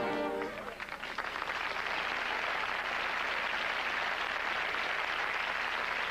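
Studio audience applauding steadily. A short musical chord fades out in the first half-second.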